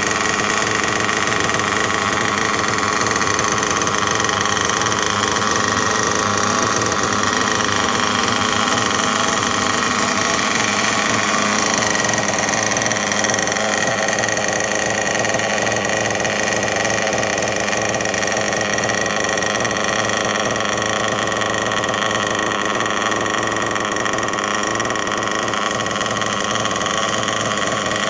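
OS Speed nitro engine of a Mugen MBX6R US 1/8-scale buggy idling steadily on its stand.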